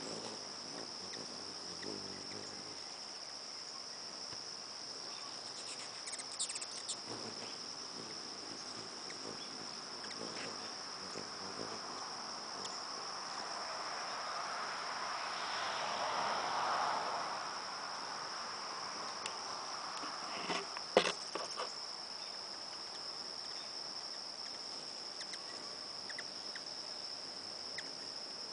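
Steady, high-pitched insect chorus, a single unbroken trilling tone. A broad rush of noise swells and fades in the middle, and a few sharp clicks come through, the loudest about two-thirds of the way in.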